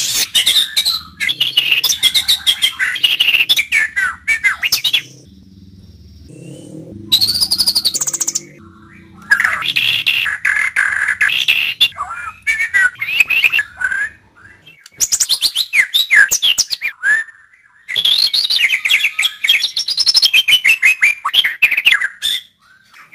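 White-rumped shama (murai batu) singing: phrases of rapid, varied whistles and chattering notes, broken by pauses of a second or two.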